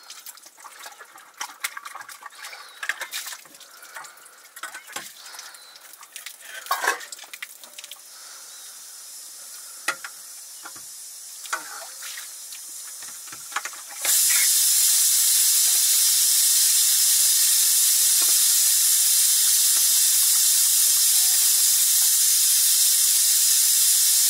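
Scattered knocks and clinks of cooking work, then a little past halfway a loud, steady hiss from the cooking starts suddenly and holds.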